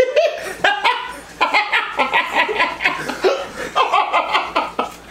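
Several people laughing hard together in a prolonged fit of laughter, quick repeated bursts of voice rising and falling.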